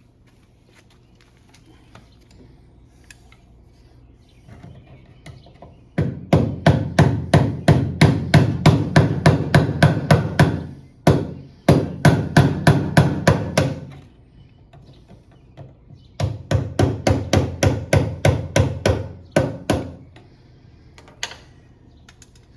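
Rapid hammer blows, about four a second in three runs, tapping the fuel pump sending unit's lock ring on the fuel tank to drive it loose.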